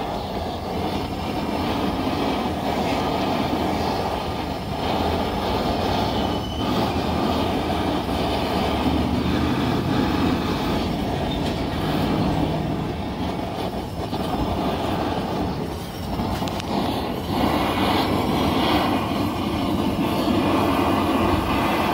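Steady rushing roar of a heating tool playing on a thick steel car body panel to heat it for dent pulling, with a few brief dips in level.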